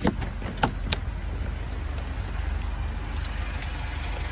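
A car engine running steadily with a low, evenly pulsing rumble. A few sharp clicks sound in the first second.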